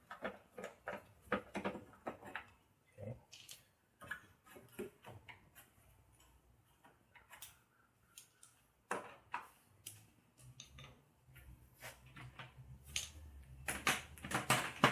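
Irregular light clicking and ticking of a hand tool and metal parts as an 8 mm screw is taken out of a car's bumper mounting bracket, quieter in the middle and busiest near the end. A faint low hum joins for a few seconds near the end.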